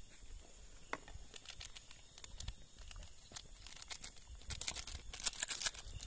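A wood cooking fire crackling with scattered sharp pops, then a dense run of crinkling and crackling near the end, over a faint steady insect drone.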